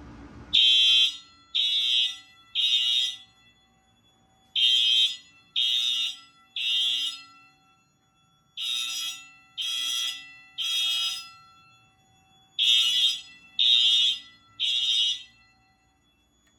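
Fire alarm horn sounding the temporal-three evacuation signal: three loud blasts about a second apart, then a pause, the pattern repeating every four seconds. This is the system in alarm.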